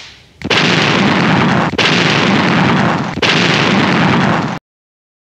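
A whoosh fades out, then three explosion sound effects play back to back, one per word of a title, each about a second and a half long and cut off abruptly.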